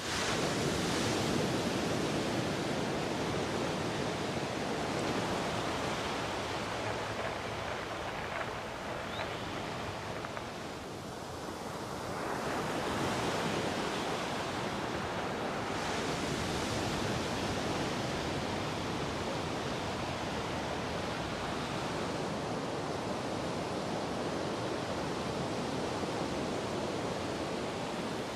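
Ocean surf: waves breaking and washing ashore in a steady rush that swells and ebbs slowly, easing off midway and building again.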